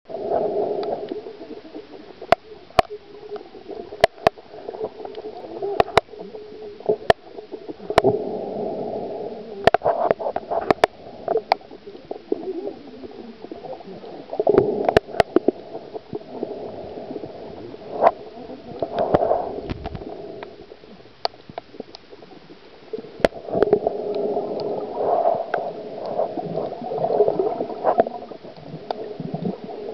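Water heard underwater: a muffled gurgling that swells and fades every few seconds, with scattered sharp clicks throughout.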